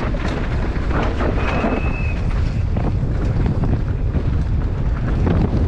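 Downhill mountain bike ridden fast over a rough dirt trail, heard from a helmet-mounted camera: constant wind buffeting on the microphone under a steady stream of rattles and knocks from the bike over the ground. A brief high-pitched tone sounds about a second and a half in.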